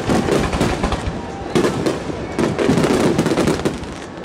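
Dense barrage of aerial firework shells bursting, one bang close on another with no break, overlapping into a continuous rumble and crackle.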